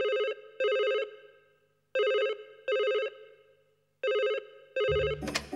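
Telephone ringing with a double-ring pattern: three pairs of short, trilling rings about two seconds apart, signalling an incoming call. Music starts near the end.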